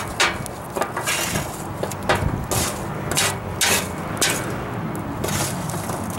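Metal tongs raking and pushing lit charcoal briquettes across a steel fire pan, giving a series of irregular scrapes and clinks, over a steady low rumble.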